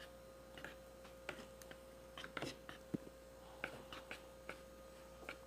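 Spoon stirring slime in a bowl: faint, irregular clicks and taps, a few a second, as the glue, salt and Veja mixture thickens.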